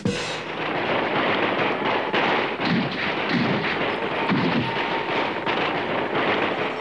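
Battle sound effect of musket fire: a dense, continuous crackle of many overlapping shots.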